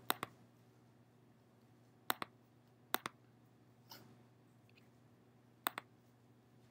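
Faint clicks from a computer's pointing device as on-screen buttons and checkboxes are clicked. There are four quick double clicks, each a press and release, at the start, about two seconds in, about three seconds in and near the end, plus a softer single tap about four seconds in, over a faint steady room hum.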